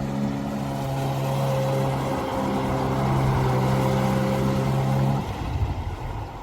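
Sea-Doo 3D jet ski's Rotax 787 RFI two-stroke twin running at high revs, holding a steady pitch, then dropping off abruptly about five seconds in as the throttle is released.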